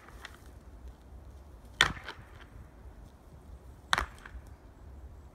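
Two peacock goats clashing horns in a rank-order fight: two sharp clacks about two seconds apart, the first the louder.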